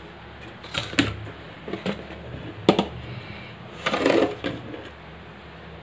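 Handling noise: a few separate sharp clicks and knocks, then a short clatter about four seconds in.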